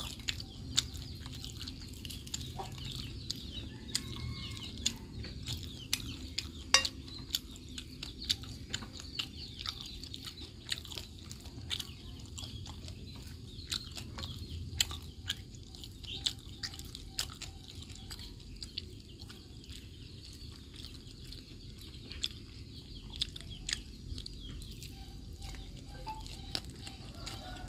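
Eating from a plate: many sharp clicks and taps scattered throughout, with chickens clucking faintly now and then.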